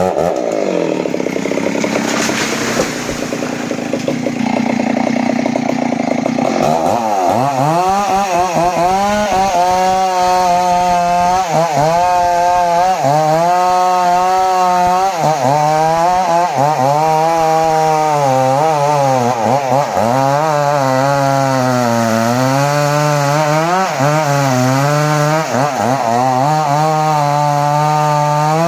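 Two-stroke chainsaw running under load while cutting johar wood. For the first several seconds the sound is rough and noisy; after that the engine note rises and dips every second or two as the chain bites and frees.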